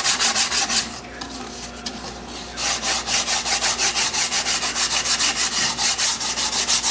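Sandpaper scrubbing back and forth along the cut edge of corrugated cardboard in quick strokes, about five a second, smoothing off the loose fibres left by the jigsaw. The strokes ease off about a second in and pick up again about two and a half seconds in.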